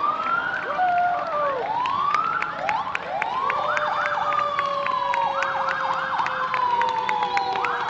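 Several emergency-vehicle sirens sounding at once, overlapping wails that rise and fall about once a second, with one long tone slowly sliding down in pitch.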